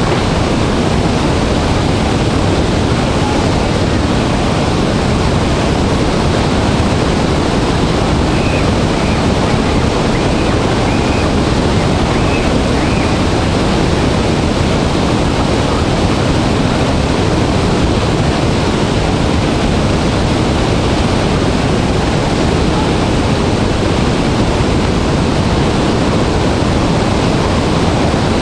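Dray Nur Waterfall in high flow, a large volume of falling water making a steady, dense rushing noise that is heaviest in the low end. It holds constant throughout.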